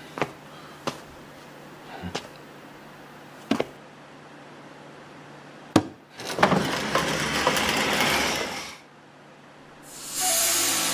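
A few slow footsteps on a wooden floor, then a sharp click and about two and a half seconds of grinding, sliding noise as a hidden floor hatch opens, set off by a lever in a wooden chair. The grinding stops suddenly, and music comes in near the end.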